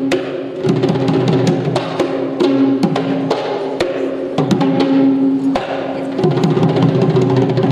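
Traditional Sri Lankan Kandyan drumming: fast, irregular hand strokes on a double-headed barrel drum, over a steady held tone that breaks off briefly a few times.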